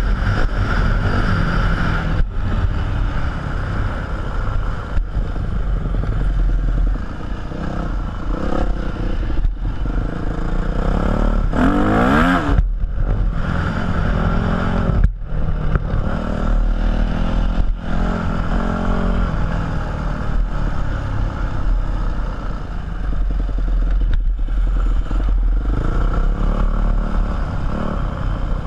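Yamaha 250 dirt bike engine revving up and down under the rider on a sandy track, the sound dipping briefly every few seconds as the throttle closes, with one sharp rising rev about twelve seconds in.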